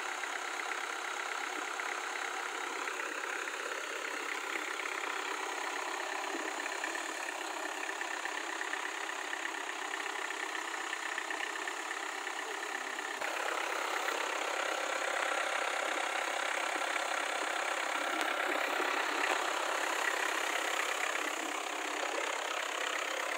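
Engine of a homemade articulated four-wheel-drive off-roader (a karakat) running steadily at low revs. About halfway through the sound shifts abruptly and gets a little louder.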